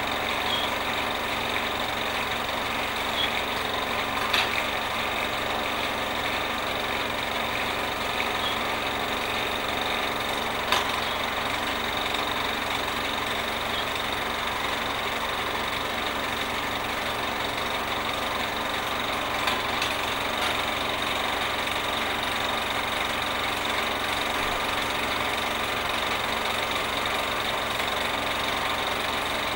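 Cine film projector running: a steady mechanical whirr with a faint hum, broken by a sharp click about four seconds in and another about eleven seconds in.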